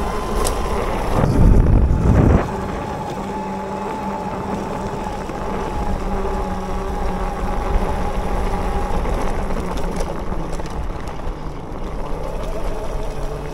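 Bafang BBSHD mid-drive e-bike motor running under power, a steady whine with overtones over wind noise on the microphone. A loud low rumble starts about a second and a half in and cuts off about a second later.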